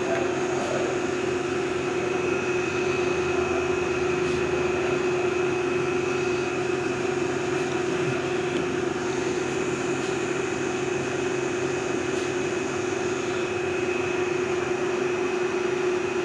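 Hardinge HLV-EV tool room lathe running at speed with the carriage on auto feed: a steady mechanical hum with a constant high whine from the drive.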